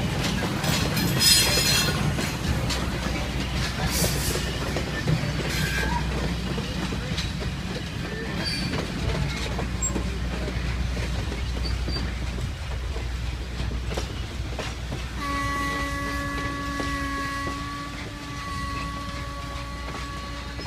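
Passenger cars rolling past on the rails, wheels clicking over the rail joints, with brief squeals. About fifteen seconds in, the whistle of Norfolk & Western 611, the steam locomotive at the head of the train, blows a long blast from up ahead, then starts again near the end.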